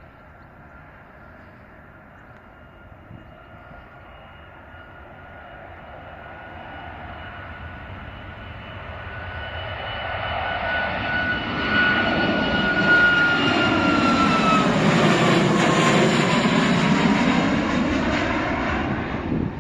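Jet airliner's engines growing from a distant roar to loud as it passes by. Their high whine drops in pitch as the aircraft goes past, about two thirds of the way in.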